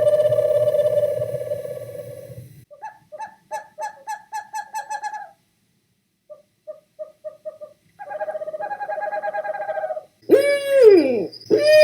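Owl calls: a long held note, then runs of quick pulsed hoots with a short pause, and near the end two calls that fall steeply in pitch.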